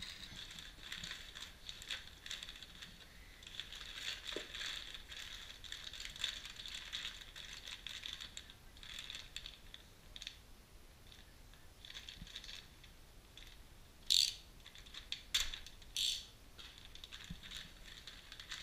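Plastic bags of car suspension parts rustling and crinkling as hands rummage through a cardboard box and lift packets out, with three sharper, louder crackles in the later part.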